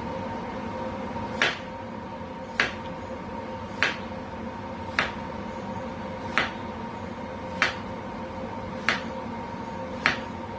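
A knife slicing through a zucchini and striking a plastic cutting board with a sharp click at each cut, eight cuts at an even pace of about one every 1.2 seconds, over a steady background hum.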